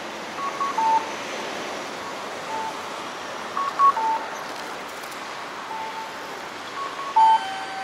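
Audible pedestrian crossing signal sounding during the walk phase: short electronic two-note calls, a higher note then a longer lower one, repeating about every three seconds over steady street traffic noise.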